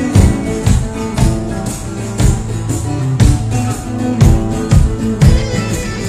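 Live folk band playing loud music: acoustic guitar with percussion keeping a steady beat of about two strokes a second.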